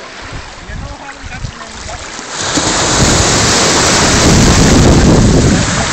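Surf washing up over a pebble and gravel beach: quiet lapping of shallow water, then a loud, steady rush as a wave breaks and surges in about two seconds in.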